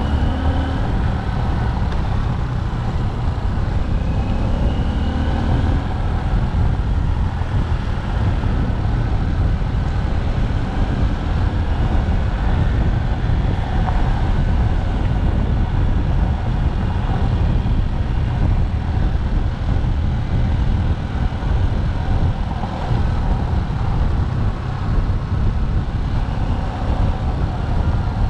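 Motorcycle engine running at cruising speed, heard from the moving bike, with heavy wind rumble on the microphone. The engine pitch shifts a little in the first few seconds, then the sound holds steady.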